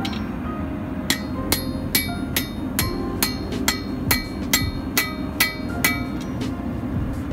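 A 1 kg blacksmith's hammer striking a red-hot railroad spike on a steel anvil. The blows start about a second in and come at an even pace of roughly two and a half a second, each with a short metallic ring, over a steady low rumble.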